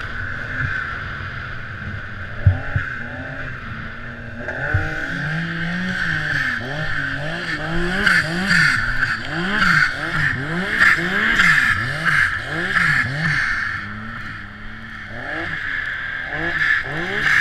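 Turbocharged Yamaha SR Viper MTX snowmobile's three-cylinder four-stroke engine, heard from the rider's seat, revving up and down over and over, about one and a half times a second through the middle stretch, as the throttle is worked through deep powder. A steady high whine runs over it throughout.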